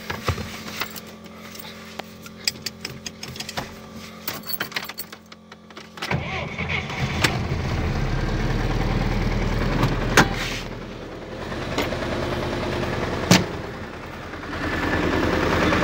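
GAZ Volga's ZMZ-402 four-cylinder carburettor engine cranked and catching about six seconds in, then idling steadily, after a few seconds of small clicks and rustling. It starts and idles without the choke now that new valve stem seals have stopped the air leak through the valves. A sharp knock comes shortly before the engine grows louder near the end.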